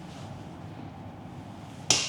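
A single sharp click near the end, with a short ringing tail, over a steady low hum.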